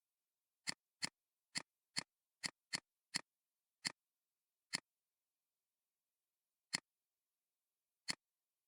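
Computer mouse clicking: eleven short, sharp clicks at uneven intervals, quick in the first few seconds and then spaced out, with dead silence between them.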